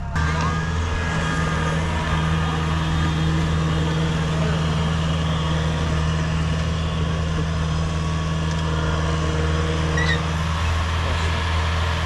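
A farm machine's engine running steadily at a constant speed.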